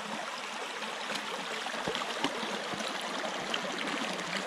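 Shallow creek running over rocks and stones: a steady rushing and burbling of water, with a few soft knocks about two seconds in.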